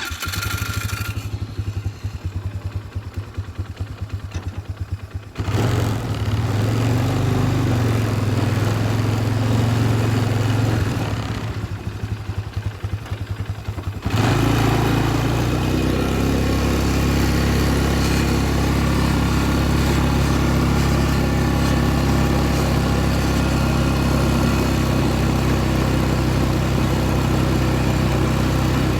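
Four-wheeler (ATV) engine starting up and idling with an even pulse, then running louder as it gets under way about five seconds in, with a further rise in engine speed about halfway through that holds steady.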